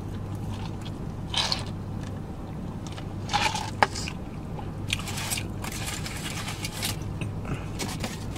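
Close-miked chewing and mouth sounds of a man eating fast food, with scattered short smacks and one sharp click about four seconds in, over a steady low hum.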